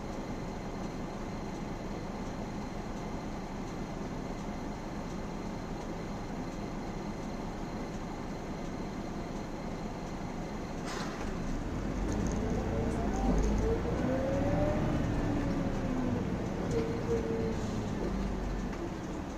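City bus diesel engine of a Mercedes O405N idling steadily while the bus stands, heard from the driver's cab. About eleven seconds in there is a short sharp sound, then the engine pulls the bus away, growing louder with its pitch rising and falling.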